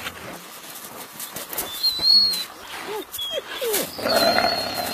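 Wolves whining and whimpering in a greeting: several short calls that rise and fall, some of them thin, very high squeaks. About four seconds in comes a louder, rougher stretch.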